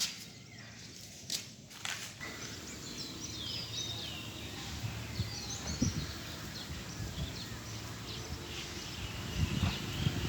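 Outdoor ambience with small birds chirping repeatedly over a steady background hiss. A few sharp clicks come in the first two seconds, and there are some low thumps near the end.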